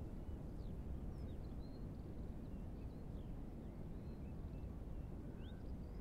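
Strong wind rumbling on the microphone in a low, gusty roar, with faint, scattered bird chirps and short whistles above it.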